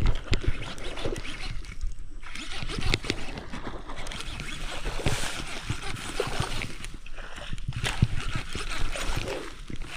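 Water splashing and sloshing in irregular spurts, the sound of a hooked snakehead fish thrashing as it is reeled in and landed.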